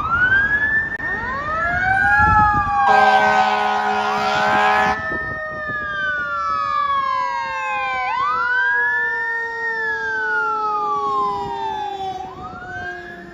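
Fire apparatus sirens wailing, sweeping up and falling back every few seconds, with a second, lower siren tone falling slowly throughout. About three seconds in, the fire engine's air horn blasts once for about two seconds over the sirens.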